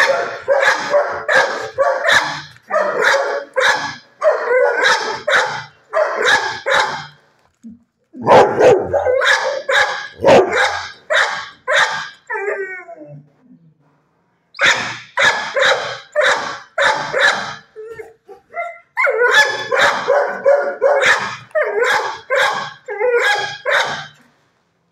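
Dog barking rapidly, about three barks a second, in runs of several seconds broken by short pauses. About twelve seconds in there is a brief falling whine-like cry.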